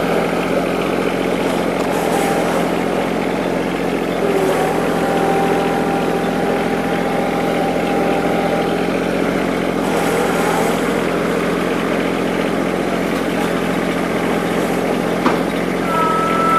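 Small tractor engine running steadily, with a faint steady whine over it and a single light knock near the end.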